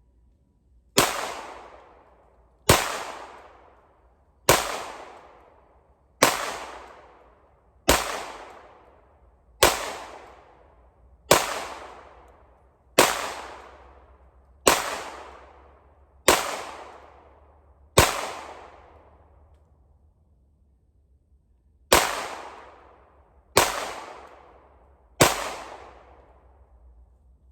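Single 9mm pistol shots from a Polymer 80 Glock 17/19 hybrid, each with a short echo tail. Eleven shots come at a slow, even pace of about one every 1.7 s, then after a pause of about four seconds three more follow. The slow pace comes from the slide stopping short of battery after each shot, so it has to be pushed home by hand; the owner blames a weak, uncaptured recoil spring.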